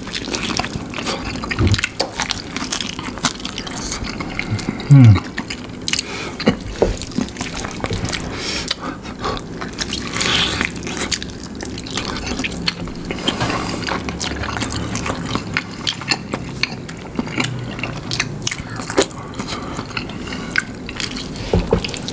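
Close-up wet eating sounds: biting into and chewing sauce-coated fried chicken, with lip smacks and many small clicks. About five seconds in there is one loud, short sound falling in pitch.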